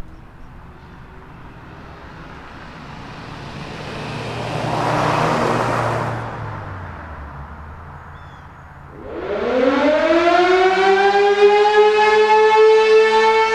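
A vehicle passes, swelling and fading over the first several seconds. About nine seconds in, an electromechanical outdoor warning siren starts its test, winding up with a steep rise in pitch and settling into a loud, steady tone.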